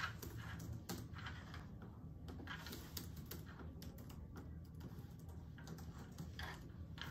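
Several people typing on laptop keyboards at once: an irregular, fast clatter of key clicks.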